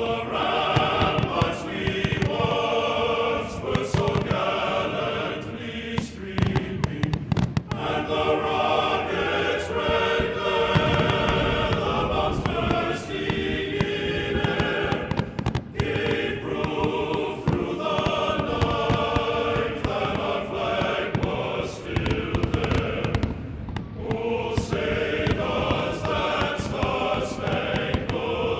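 Choral music with sustained sung chords, over the repeated bangs and booms of aerial fireworks shells bursting.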